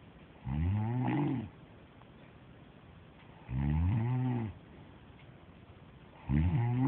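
A woman snoring in her sleep: three loud, rough snores, each about a second long, coming about every three seconds with quiet breathing between.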